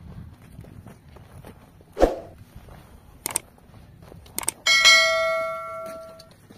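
Footsteps on a dirt track and a thump about two seconds in, then two sharp clicks and a bright bell ding that rings out for about a second and a half: the click-and-bell sound effect of a subscribe-button animation.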